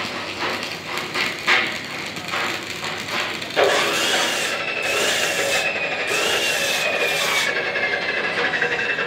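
Stick (arc) welding on steel channel: the arc crackles and sizzles with irregular sharp pops. About three and a half seconds in it grows louder, and a steady high whine joins it, slowly falling in pitch.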